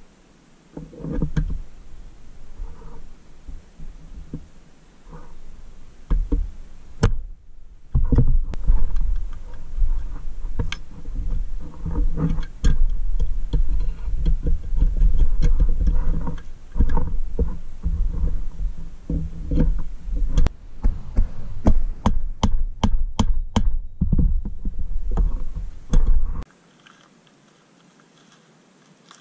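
A restored pressed-steel Tonka toy forklift being handled on a carpeted bench as its wheels are fitted: irregular knocks, clicks and thumps of metal body and wheels, with a quick run of sharp clicks about two-thirds through. The sound drops to near silence near the end.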